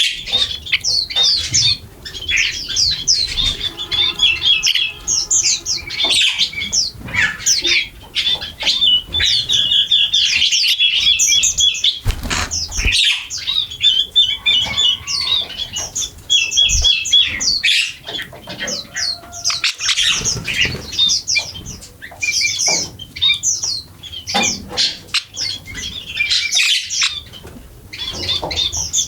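A flock of birds chirping and squawking together, many short high calls overlapping without a break, with now and then a brief flutter of wings.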